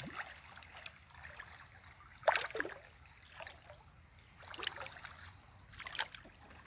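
A hooked barbel thrashing in shallow river water: a handful of separate splashes, the loudest a little over two seconds in.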